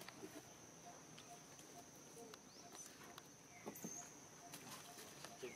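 Faint outdoor background: light scuffles and pattering from monkeys moving on concrete, over a steady high tone and a soft note repeating about twice a second.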